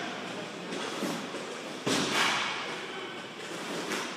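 Inline roller hockey in play: steady rink noise from skating and play, with one loud sharp crack about two seconds in and a smaller knock near the end.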